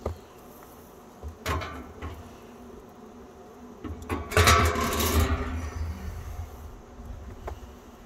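A metal diffuser plate being fitted into a steel drum smoker: a sharp metallic clank about a second and a half in, then a louder clattering scrape lasting about a second in the middle as the plate is set down into the barrel.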